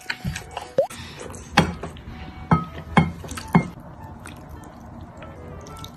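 Four sharp clinks about a second and a half to three and a half seconds in, as chopsticks and a ceramic plate knock against a glass bowl while braised pork and its sauce are scraped onto rice. Background music plays underneath.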